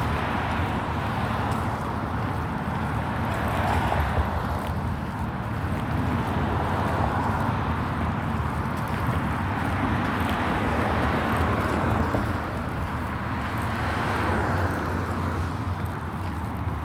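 Outdoor road noise: cars passing every few seconds, swelling and fading, over a steady low rumble.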